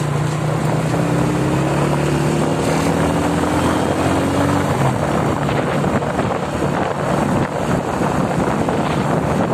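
Road and traffic noise from a moving vehicle in traffic: a steady engine hum, with a few faint rising tones, runs until about five seconds in, then gives way to rough rushing wind on the microphone.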